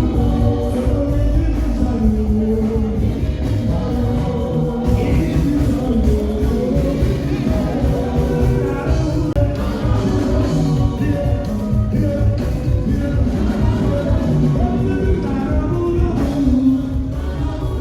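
Loud music with singing over a heavy, steady bass beat.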